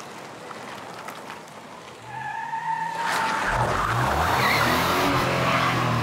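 A car: a tyre squeal about two seconds in, then the engine runs loud with its pitch shifting, as in hard driving.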